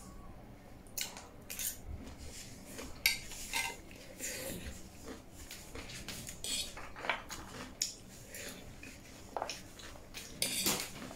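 Metal fork and spoon clinking and scraping on a plate of noodles as food is picked up, in short irregular taps scattered throughout.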